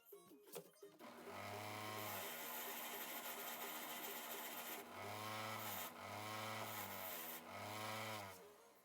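A small electric power tool runs in about four passes, starting about a second in. Its pitch sags and recovers with each pass, as when sanding or grinding under load, with short breaks near the middle and toward the end.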